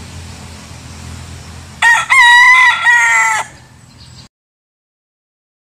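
A young rooster crows once, about two seconds in. It gives a short opening note, then a long, loud call lasting about a second and a half, with a brief catch near its end. Before the crow a low steady rumble sits in the background.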